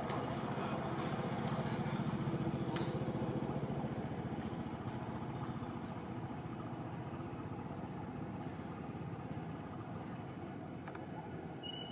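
A motor engine running with a fast low throb, loudest about two seconds in and slowly fading. A steady high insect buzz runs behind it.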